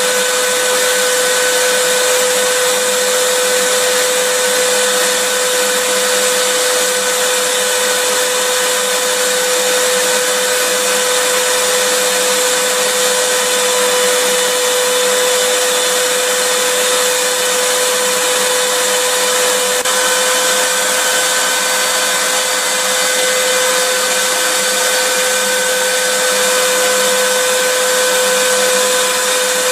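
Vacuum cleaner running steadily: an even rushing noise with a constant motor whine.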